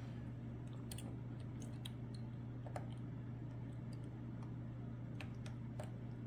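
Faint, irregular clicks of a steel lock pick working the pin stack of a Lockwood Twin brass padlock, a pin-tumbler lock with a sidebar, over a steady low hum.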